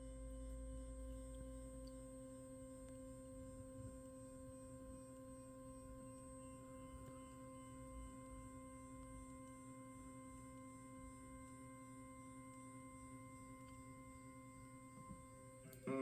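Faint, steady whine of a 3D printer's stepper motors running a homing move, holding one pitch throughout.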